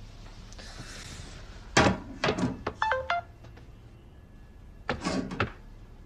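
Mobile phone alerting to an incoming message: two short buzzing rattles about three seconds apart, with a brief stepped electronic chime between them.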